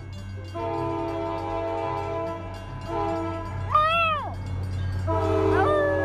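A Scottish terrier howling: one rising-and-falling howl about four seconds in, then a long falling howl near the end. Behind it, a horn of several notes sounds in long steady blasts.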